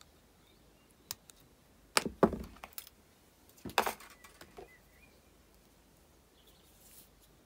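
Sharp clicks from small jewellery tools and copper wire being handled: one click about a second in, a loud close pair about two seconds in, and another cluster near four seconds, trailing off into faint ticks.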